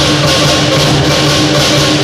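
Lion dance percussion band: a big Chinese drum, cymbals and gong played loud and without pause, the cymbal crashes repeating in a steady beat.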